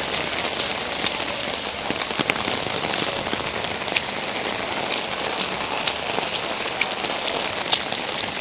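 Heavy rain falling steadily, with sharp taps of individual drops striking close by.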